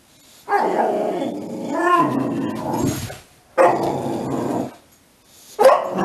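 Boxer dog barking at the television in three long, drawn-out bouts, the first lasting about three seconds.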